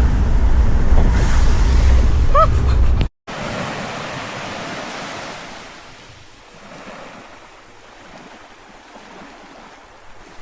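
Wind rumbling hard on the microphone over rushing water, as on a moving boat. It cuts off about three seconds in, and a much quieter rushing of water and wind follows, slowly fading.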